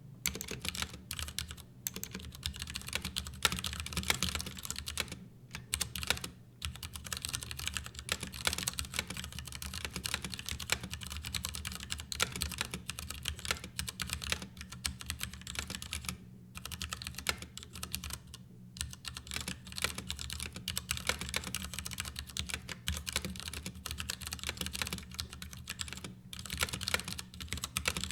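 Continuous fast typing on the Ducky Year of the Rat mechanical keyboard: a dense run of key clacks with a few brief pauses between bursts.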